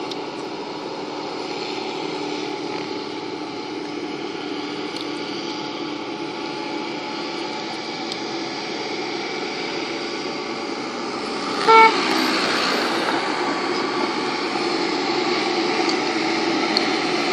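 Tractor engine running as it pulls a loaded silage trailer, growing louder as it approaches, with one short horn toot about twelve seconds in.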